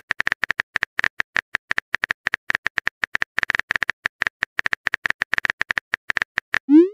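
Rapid phone-keyboard typing clicks, about six or seven a second, from a texting app's typing sound effect as a message is keyed in letter by letter. Just before the end a short upward-sweeping sound effect plays, the app's message-send sound.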